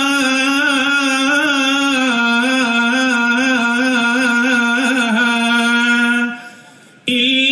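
Men's voices singing a Duffmuttu song, with a long sustained note that fades out about six seconds in before the singing starts again near the end.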